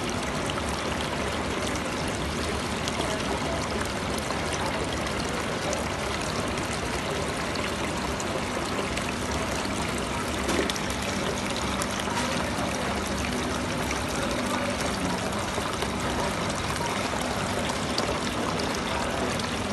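Water from a small decorative rock-style fountain pouring steadily from its spout and splashing onto the rocks and into the basin, with a faint steady hum underneath.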